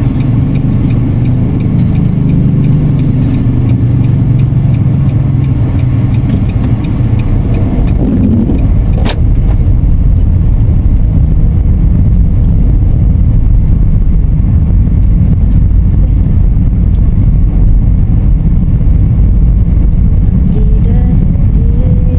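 Steady low rumble of engine and road noise inside the cabin of a moving car, with a single sharp click about nine seconds in.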